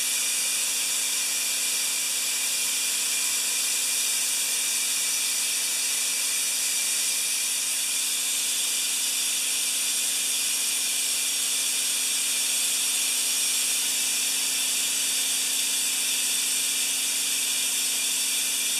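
Compressed air hissing steadily from an open air hose as the tanks are bled down, with the larger air compressor running underneath as a steady hum, kicked on by the falling tank pressure.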